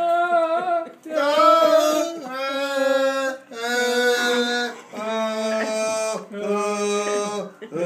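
A man singing unaccompanied, holding long notes in a few phrases that step down in pitch, with short breaks between them.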